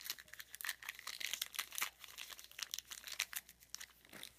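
Foil trading-card pack wrapper crinkling and tearing as it is peeled open by hand: a quick run of sharp crackles that thins out near the end.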